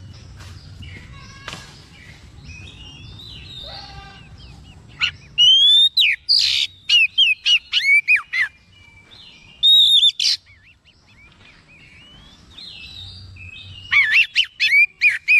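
Oriental magpie-robin singing: after softer chirping, loud clear whistled phrases with quick rising and falling notes begin about five seconds in, break off for a few seconds, and start again near the end.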